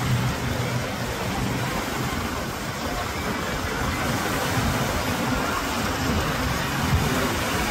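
Steady noise of a U.S. Coast Guard MH-65 Dolphin helicopter flying low over the water.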